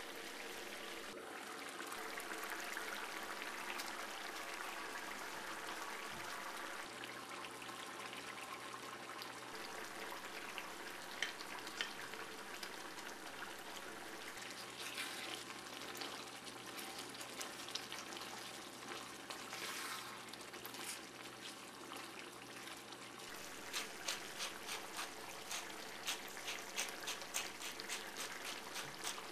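Thick coconut-milk green curry simmering in a pan, bubbling with soft pops that come faster and louder near the end.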